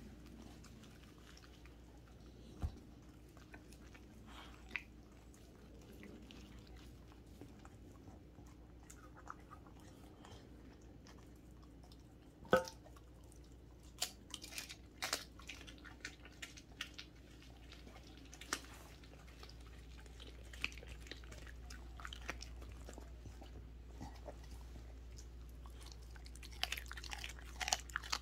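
A Welsh corgi chewing and biting into a whole raw chicken: quiet wet mouthing punctuated by sharp crunches, sparse at first and more frequent near the end.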